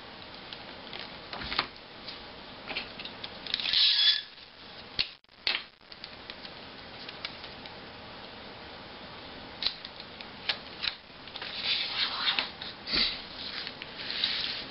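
Paper and tape being handled and smoothed down by hand on a paper airplane wing against a tabletop: scattered light taps and rustling, with a short sharp crackle about four seconds in and a run of rustling near the end as the strip is pressed flat.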